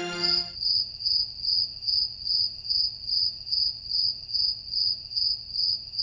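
Cricket chirping steadily, a high trill pulsing about two to three times a second.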